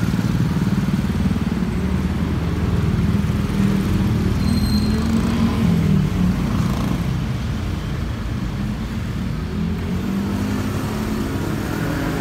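Road traffic, mostly motor scooters and cars, running past close by, a steady engine hum with an engine changing pitch about five seconds in.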